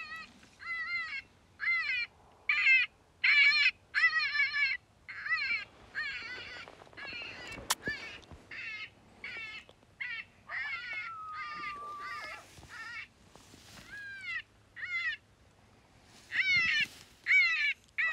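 Lucky Duck electronic predator caller playing a distressed-animal sound to lure coyotes: short wavering squalls repeated in quick succession, with one longer drawn-out falling whine about eleven seconds in. A single sharp click is heard near eight seconds.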